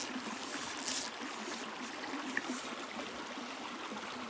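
Small, shallow rocky stream trickling and babbling steadily over stones, with a short hiss right at the start and again about a second in.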